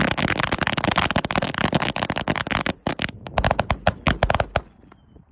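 A string of firecrackers going off: a dense, rapid crackle of bangs that thins to scattered single pops about three seconds in and dies out a couple of seconds later.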